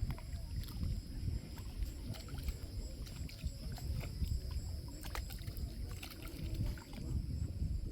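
Bay water washing and lapping in small waves, heard as a steady low rumble that swells and ebbs irregularly, with scattered small clicks and splashes.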